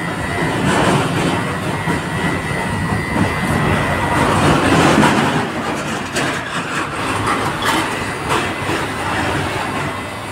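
Electric hair clipper running against a beard, a steady mechanical buzz with a scratchy rasp that gets louder around a second in and again midway as the blades work over the stubble.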